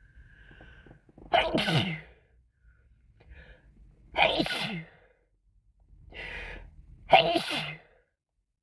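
A person with a cold sneezing three times in a row, about three seconds apart, each sneeze starting sharply, with short in-breaths between them.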